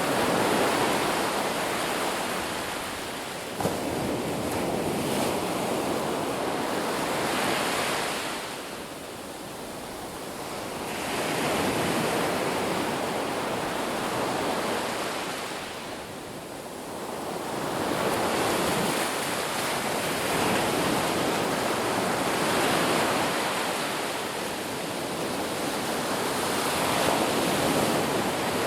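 Ocean surf washing onto a beach: a steady rush of breaking waves that swells and eases, falling to quieter lulls twice.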